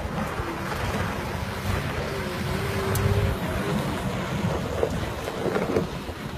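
Low rumble of a tourist bus's engine and running gear, with wind buffeting the microphone.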